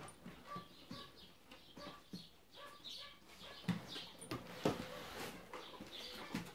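Excited dog whining in short, squeaky calls, over and over. Two louder knocks come about a second apart, nearly four seconds in.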